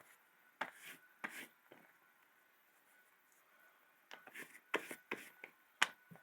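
Handling noises from a leather knife sheath being worked with conditioner: a scattering of short sharp clicks and rubs, a few near the start and a tighter cluster between about four and six seconds in.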